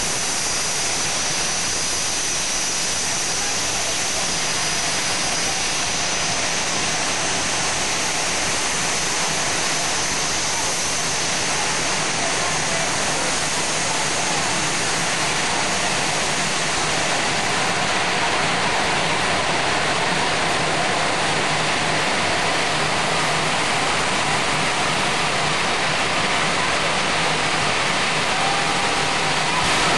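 Twin jet engines of a 1940 jet-powered fire truck running steadily at the start line: a continuous loud rushing noise with a faint high turbine whine, growing a little louder near the end.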